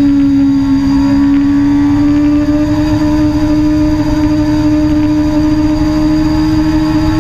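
Suzuki sport bike's engine running hard at speed, its note dipping slightly near the start, then climbing slowly and holding. It is heard over heavy wind buffeting on the bike-mounted microphone.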